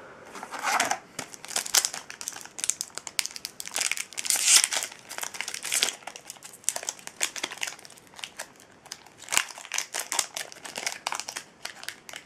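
Foil wrapper of a Yu-Gi-Oh! booster pack crinkling as it is handled and torn open. The crackling is loudest a little before the middle.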